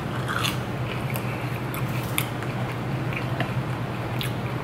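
Close-up eating sounds: chewing and crunching of crispy fried food, with scattered sharp crackles of breading being bitten and torn.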